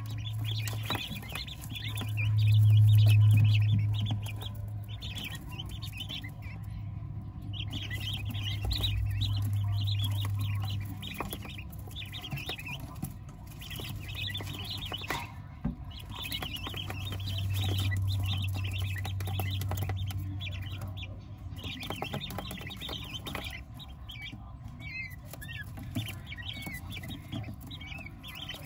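A small flock of young white king quail peeping and chirping with many short, high calls. A low hum swells and fades three times and is loudest about two to four seconds in.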